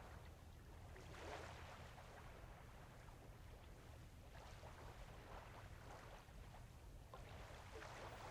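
Faint waterfront ambience: water lapping against the harbour edge in soft swells over a low steady hum.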